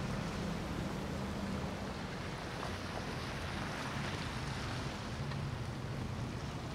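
Motor yacht engines running as the boats cruise past, a steady low drone under wind and water noise. The drone shifts to a lower pitch about two to three seconds in.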